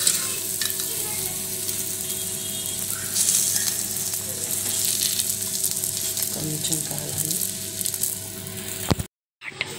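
Oil sizzling steadily under an aloo chapati frying on a hot tawa. The sound drops out briefly near the end.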